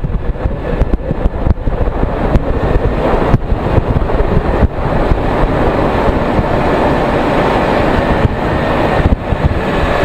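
Vehicle driving along a road: steady engine and tyre noise with scattered knocks and clunks, a little louder from about three seconds in.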